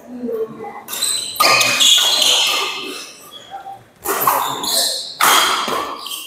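Doubles badminton rally in a large indoor hall: rackets striking the shuttlecock and players moving and calling out, in a series of sudden loud bursts that echo, the loudest about a second and a half in and more around four and five seconds in.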